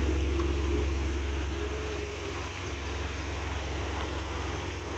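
Heavy diesel truck engine idling close by: a steady low hum over a haze of noise, easing slightly about two seconds in.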